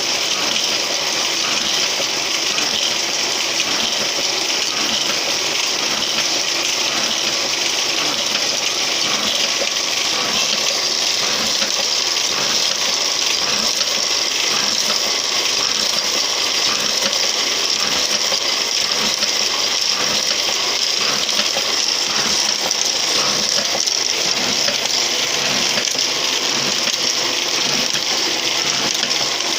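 A machine running steadily, giving a continuous hissing mechanical noise with a fast, even clatter.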